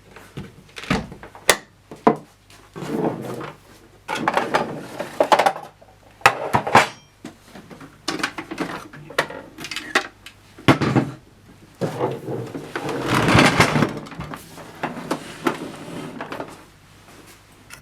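Irregular clicks, knocks and scraping of plastic and metal parts being handled, typical of a Jura Z5 espresso machine being taken apart by hand.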